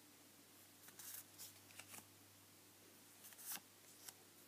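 Faint rustles and light taps of paper cards being handled and set down on a board, a few short ones about a second in and again around three and a half seconds.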